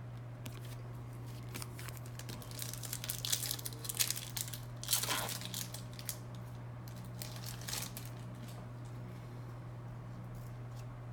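A foil card-pack wrapper being torn open and crinkled: a run of crackles and rustles over about five seconds, loudest in the middle, with a steady low hum underneath.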